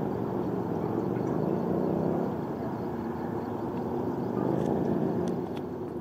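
Steady low rumble of distant engines, with a few faint high ticks in the second half.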